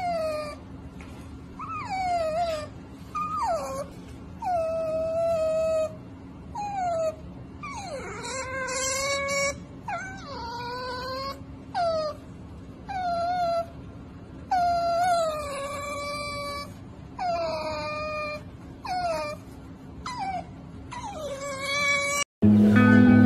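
Asian small-clawed otter making a long series of high, squeaky whining calls, about fifteen of them, each falling in pitch and some drawn out for about a second. Near the end they are cut off abruptly by acoustic guitar music.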